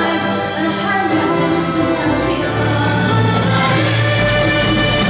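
Symphony orchestra playing with singing voices over it; a low held bass note comes in about halfway through.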